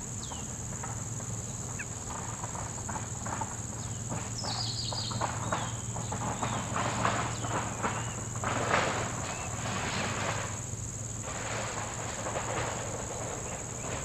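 Steady, high-pitched drone of insects, with a few short bird chirps over it. A rushing noise with a low hum beneath swells through the middle and fades near the end.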